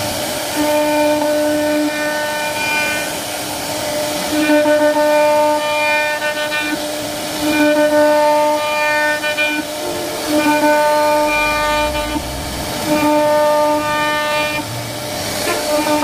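CNC router spindle whining at one steady pitch as its carving bit cuts into a wooden panel, a harsher upper edge to the whine coming and going every second or two.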